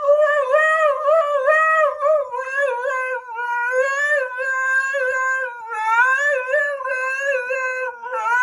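A pet animal howling in one long, unbroken call whose pitch wobbles up and down.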